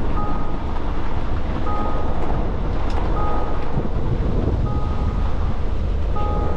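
Truck on the move: a steady low engine rumble under a hiss of tyre and wind noise, with a short two-note electronic beep repeating about every second and a half.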